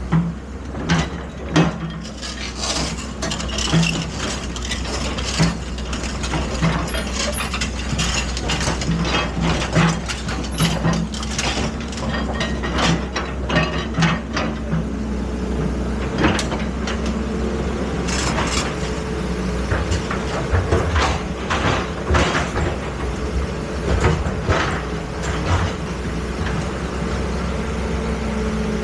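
Excavator at work: the engine runs with a steady low drone while frequent sharp metal clanks and knocks come at irregular intervals.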